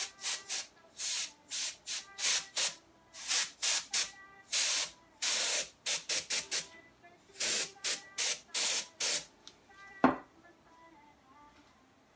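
Compressed air from a can with a red extension straw, let out in about twenty short hisses, some two a second, to push alcohol ink across the canvas. A single sharp knock comes about ten seconds in.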